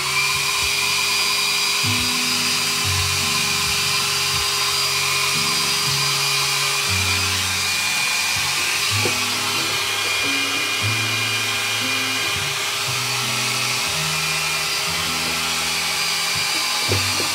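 Heat gun running steadily, a loud rush of hot air with a thin motor whine, softening carbon-fibre-look vinyl wrap film. Background music with a low bass line plays underneath.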